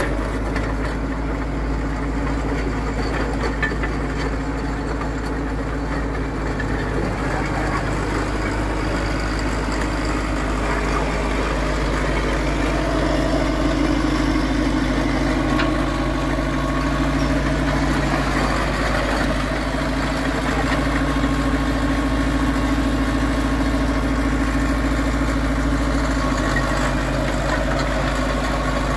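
Caterpillar D4E crawler dozer's diesel engine idling steadily.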